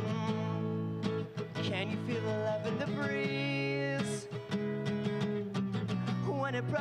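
A man singing live to his own strummed acoustic guitar, a solo song played through the arena's sound system.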